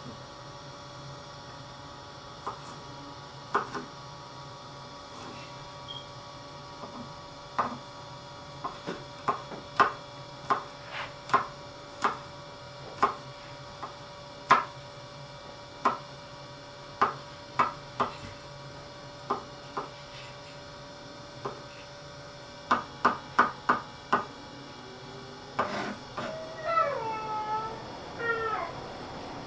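A chef's knife mincing garlic on a wooden cutting board: sharp, irregular knocks of the blade on the board, with quick runs of strokes in between slower single chops. A faint steady hum lies underneath, and a brief wavering, pitched sound comes in near the end.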